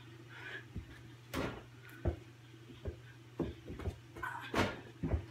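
Small basketball knocking against a mini hoop and bouncing: about six sharp, irregular knocks and thumps, the strongest about a second and a half in and again about four and a half seconds in. A steady low hum runs underneath.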